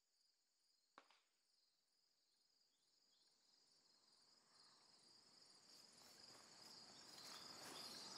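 Near silence, with faint steady cricket chirping and a single faint click about a second in.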